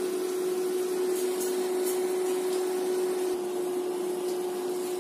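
Steady machine hum: one held mid-low tone over a soft even hiss, unchanging throughout.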